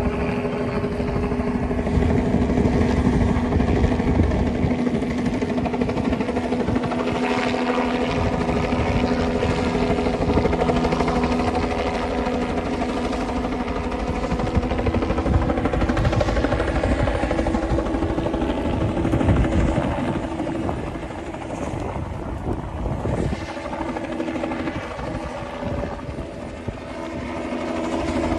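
A steady mechanical drone, a constant hum that shifts pitch partway through, over a rough rumbling noise.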